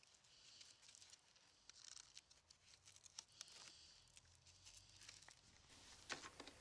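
Near silence, with faint scattered rustles and ticks of gloved hands fastening velcro straps around the control cable on a backpack leaf blower's tube.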